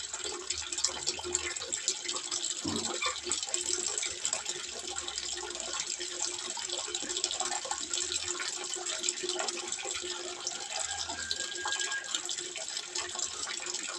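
Water trickling steadily into a small fish pond, an even splashing hiss.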